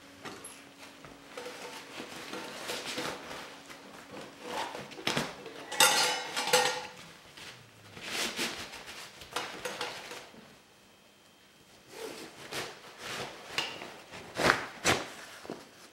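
Hiking backpack being packed by hand: nylon fabric rustling, gear shuffled in, and metal items clinking together, loudest about six seconds in.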